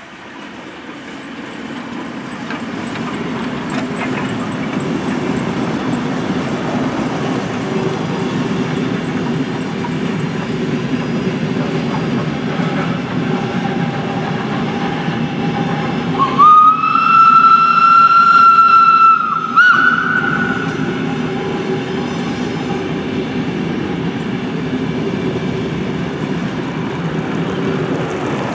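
A train running past over a level crossing, its rumble and wheel noise building over the first few seconds and staying steady. About sixteen seconds in, the train gives one long warning blast of about three seconds, which ends with a brief higher toot.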